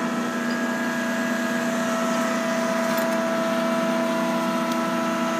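Cazeneuve HB725 engine lathe running under power with the half nut engaged for threading: a steady, even hum with several held tones from the drive and gearing.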